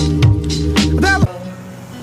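A pop song with bass and a sung vocal, ending abruptly just over a second in; a much quieter, steady background noise with a faint low hum follows.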